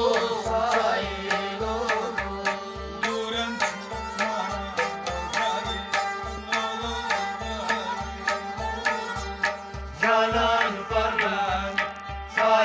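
Kashmiri folk music: a clay pot drum (noot) slapped by hand, keeping a steady beat of about two to three strokes a second, under a bowed string melody.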